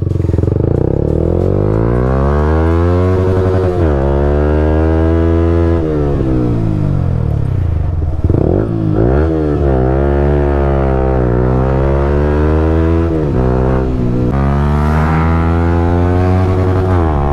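Yamaha R15 M's single-cylinder engine, fitted with an aftermarket exhaust, accelerating through the gears while riding: the engine note climbs and drops back at each shift, easing off once near the middle before pulling up through several more shifts.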